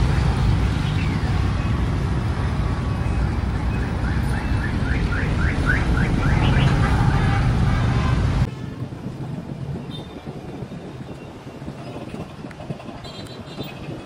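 Battery-powered plastic toy train running on its plastic track: a steady motor whir and wheel rattle, with a quick run of rising chirps around the middle. About eight and a half seconds in it stops abruptly, leaving quieter sound with faint clicks of plastic parts being handled.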